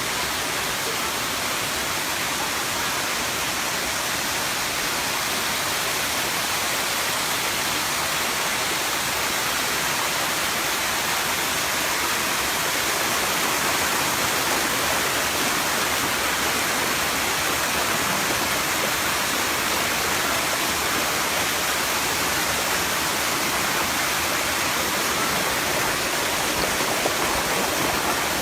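Steady, loud rush of water falling over the cascades of Erawan Waterfall's seventh tier.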